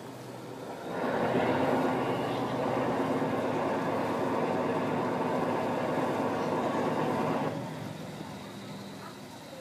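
Fishing boat's diesel engine throttled up, running loud and steady for about six seconds from about a second in, then easing back near the end, as the boat manoeuvres against a strong tide.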